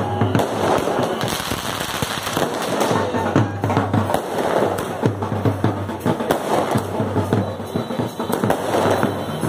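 Fireworks going off in a dense run of rapid cracks and pops, with music playing underneath.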